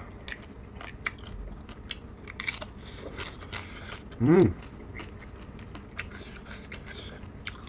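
Close-up chewing and biting on a piece of crab from spicy braised seafood, with scattered small crunches and clicks. A short hummed voice sound comes about four seconds in.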